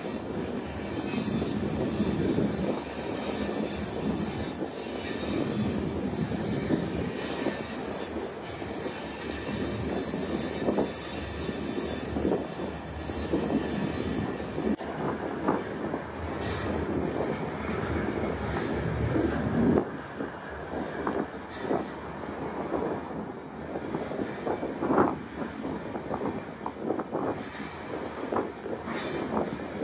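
Loaded iron-ore wagons of a very long freight train rolling along the track, heard from on top of an open wagon: a continuous rumble and rattle of steel wheels and wagon bodies, with scattered sharp metallic clanks. It eases off slightly about two-thirds of the way through.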